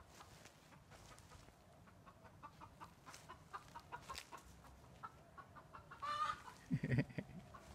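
A bird clucking: short calls repeated over and over, with one longer call about six seconds in, followed by a low thump.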